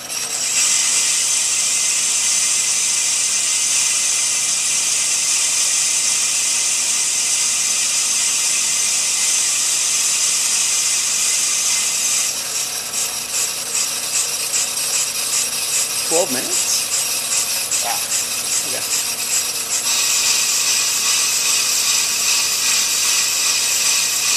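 Ammco brake lathe turning a hubless brake rotor while its cutting bits shave metal from the rotor faces, a steady high scraping hiss. The cut is set deeper to clean out a ridge and groove worn into the rotor. About halfway through the hiss takes on a fast, regular pulsing.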